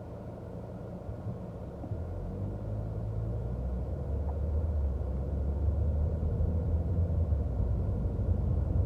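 Low road and engine rumble inside a moving Chevrolet Cruze, growing steadily louder from about two seconds in as the car picks up speed.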